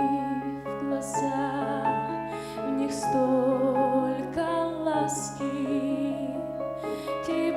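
Slow, gentle music from a sung church solo: a low note held throughout under a melody with vibrato.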